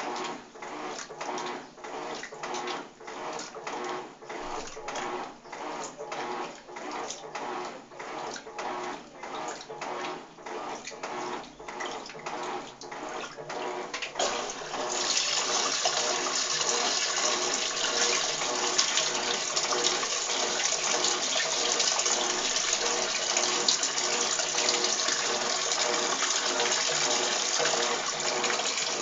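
Electrolux TOP6F top-loading washing machine agitating a load, water and clothes sloshing back and forth about twice a second. About halfway through the pulsing gives way to a louder, steady rush of water.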